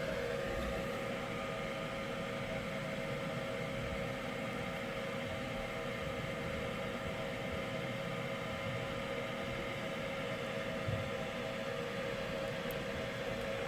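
Fume extractor fan running with a steady hum and whir.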